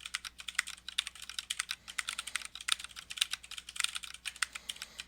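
Fast typing on an Ergodox EZ split ortholinear mechanical keyboard: a rapid, uneven stream of key clicks, several a second, during a timed typing test.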